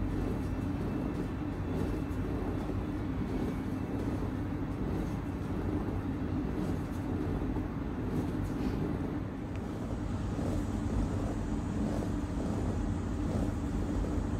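Steady low background rumble and hum with no clear events.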